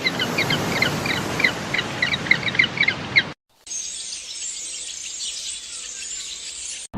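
Birds chirping: a quick series of short, high chirps over a noisy background, then, after a sudden cut about three and a half seconds in, a different recording of dense, higher-pitched chirping chatter.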